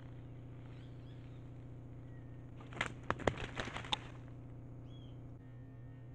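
A burst of sharp rustling and clattering in dry leaf litter lasting about a second, as a tegu lizard is caught in a noose snare and thrashes. Under it runs a steady low hum, with a few faint bird chirps near the start.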